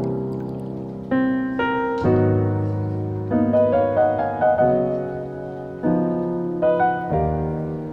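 Background piano music: gentle chords struck and left to ring, changing about once a second.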